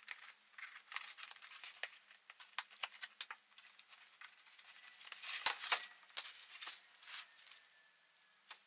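Cardboard box flaps and plastic packaging bags being handled and pulled open, with irregular crinkling and rustling and a louder burst of crackles about halfway through.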